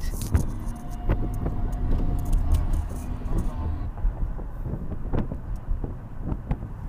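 Low, steady rumble inside a car on the move, with scattered clicks and rattles.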